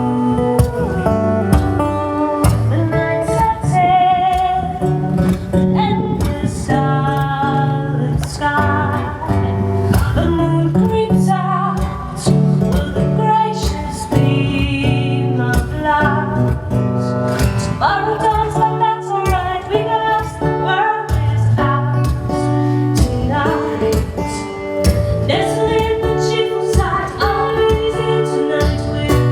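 A band playing a song live: guitar with a steady beat and a moving bass line, and a voice singing held, wavering notes over it.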